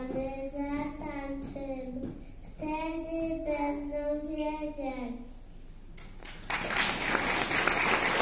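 Young children singing the last long held notes of a song, the final note sliding down and ending about five seconds in. After a short lull, the audience starts applauding near the end.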